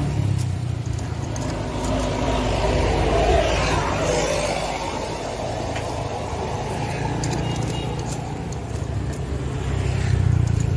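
A motor vehicle passing on the road, its noise swelling and fading over a few seconds, over a steady low rumble. A few light metal clicks and scrapes.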